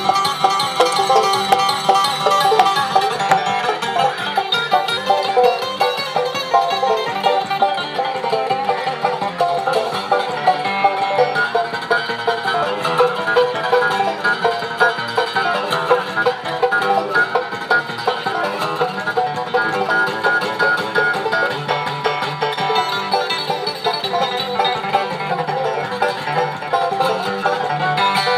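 Bluegrass band playing a tune with plucked strings, the banjo to the fore.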